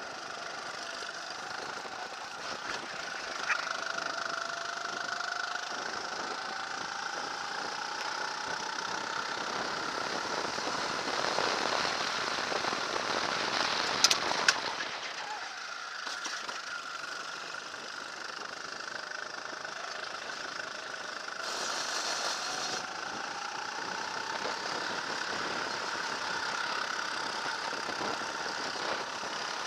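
Four-stroke engine of a Sodikart RT8 rental kart running under racing load, heard from on board, its pitch rising slowly as it accelerates out of the corners. A louder noisy stretch midway carries a couple of sharp knocks.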